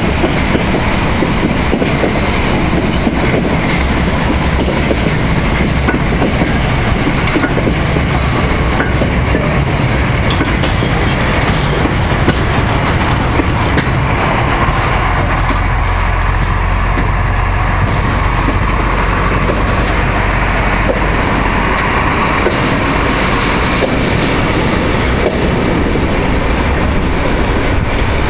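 Yellow diesel track-maintenance rail vehicle with a crane passing along the tracks, its wheels on the rails making a steady noise. Its engine's deep drone grows stronger about halfway through as it goes by close.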